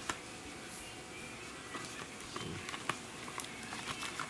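Handling noise of small cardboard firework boxes: a light click as one is set down, then scattered soft taps and ticks as items are shuffled in a packed carton, over a steady hiss.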